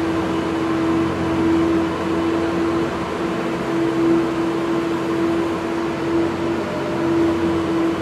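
Zamboni ice resurfacer running steadily: a constant engine hum with one strong held drone over an even hiss.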